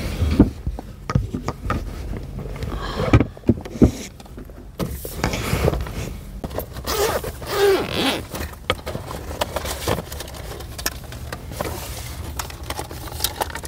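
Irregular rustling, scraping and clicking handling noises over a low steady rumble.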